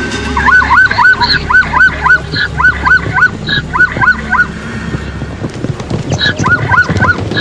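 An animal yelping in a quick run of short high calls, each rising then falling in pitch, about three a second. It pauses about halfway through and starts again near the end.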